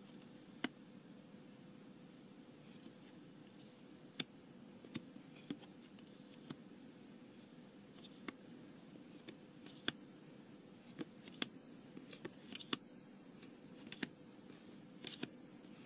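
Paper trading cards being handled and sorted: sharp, irregular clicks and snaps as single cards are slid off a stack and laid onto piles, coming more often in the second half, over a faint steady hum.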